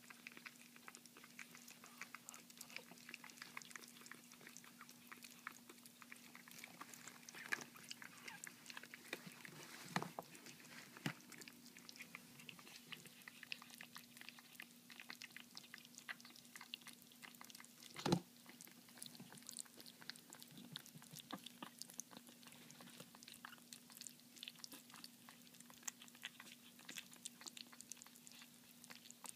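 Chihuahua puppies eating soft mushy food from a shallow plastic tray: a faint, steady patter of small wet chewing and smacking clicks, with a few louder knocks against the tray, the loudest about two-thirds of the way through.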